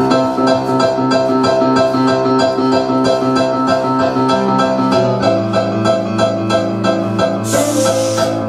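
Piano playing repeated chords in a steady rhythm, about three to four strokes a second, moving to a new chord about five seconds in. A short burst of noise sounds near the end.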